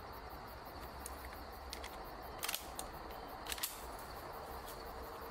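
Footsteps crunching on dry leaf litter: a few short, sharp crackles, the strongest about two and a half and three and a half seconds in, over a quiet steady background.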